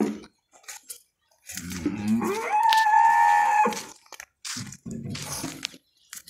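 A Holstein Friesian cow moos once: a long call of about two seconds that rises in pitch and then holds steady. A lower, weaker sound follows, and short clicks are scattered around it.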